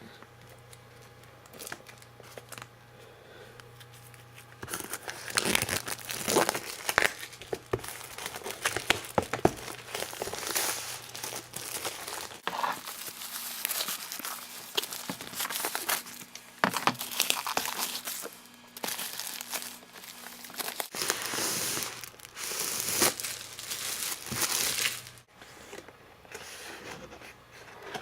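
Product packaging being handled and opened: crinkling plastic, tearing and rustling with scattered clicks and knocks, starting about five seconds in after a quiet stretch.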